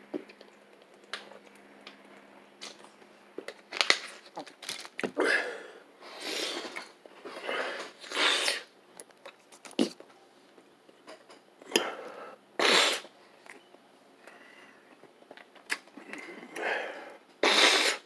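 A person sniffing and breathing hard through a congested, runny nose from bad allergies: about eight short noisy sniffs spread out, with a few sharp clicks in between.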